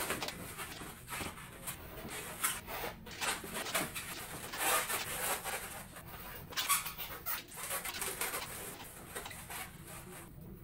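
Inflated latex modelling balloons squeaking and rubbing against each other as they are twisted and locked together, in irregular bursts with the loudest squeaks about five and seven seconds in.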